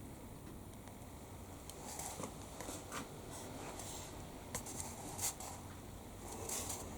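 Faint scattered clicks and rustles over a quiet room background, with no drill running.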